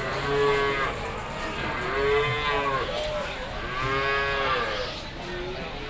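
Goats bleating: three long, drawn-out bleats about a second and a half apart, each rising then falling in pitch, with shorter bleats between them.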